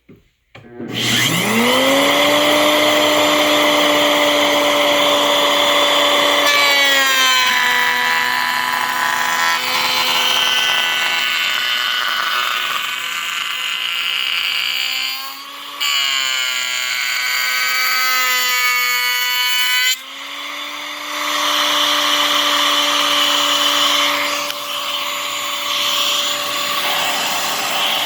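Router on a router table switching on and spinning up to a steady high whine. From about seven seconds in, its pitch sags and a rough cutting noise joins it as the bit cuts a molding profile in wood. Near twenty seconds it briefly runs free at full pitch before it is loaded and cutting again.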